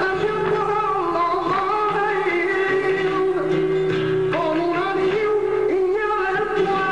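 Music with singing: a vocal melody holding long notes over a steady accompaniment.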